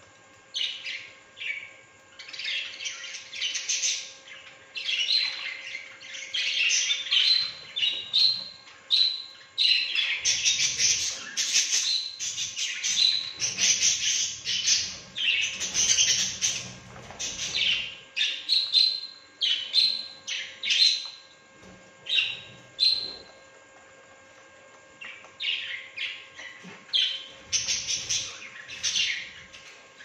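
A flock of budgerigars chattering: rapid overlapping chirps, warbles and squawks, with a short lull about three-quarters of the way through.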